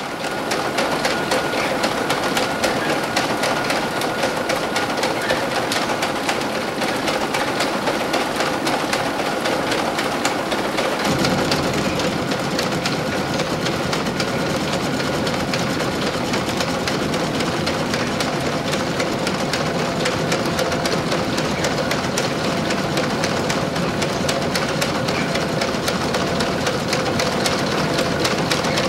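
Old wool-processing machines in a cloth mill running: a dense, rapid mechanical clatter over a steady hum. About eleven seconds in a deeper rumble joins in.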